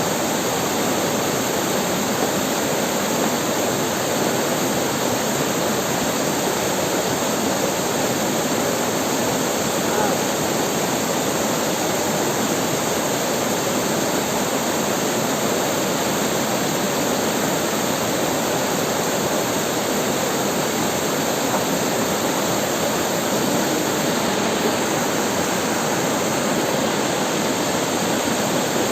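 River water flowing and splashing over rocks, a steady rushing sound that does not change.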